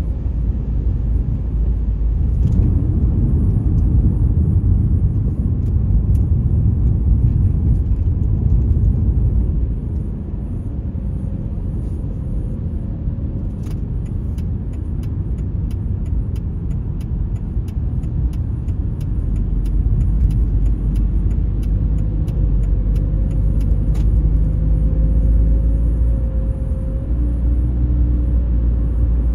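Steady low rumble of tyres and engine heard from inside a moving vehicle's cabin at cruising speed. About halfway through, a run of faint quick ticks goes on for about ten seconds.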